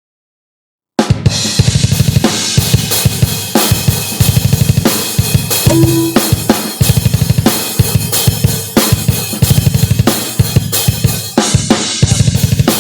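Drum-heavy music with bass drum, snare and cymbals playing a fast, busy beat. It cuts in suddenly and loud after about a second of dead silence.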